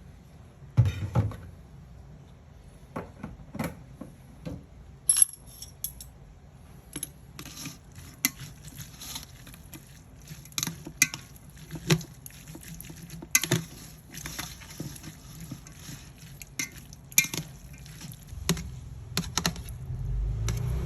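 Dishes and utensils being handled: scattered sharp clinks and knocks, some close together, every second or so. A louder low sound comes in near the end.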